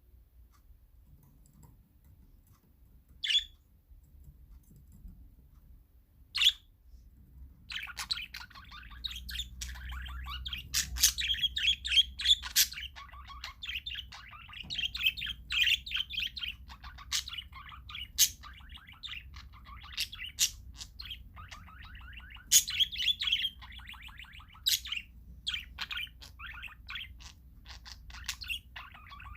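Parakeets calling: two single sharp calls in the first few seconds, then from about eight seconds in, several birds chattering continuously, with frequent loud, shrill screeches above the chatter.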